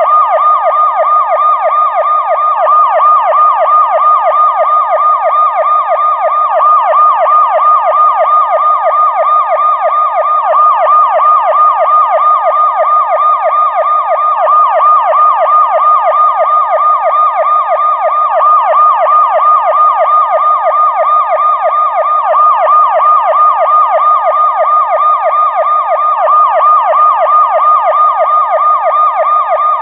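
Police siren in fast yelp mode: a loud, rapid rising-and-falling wail repeating several times a second at a steady level.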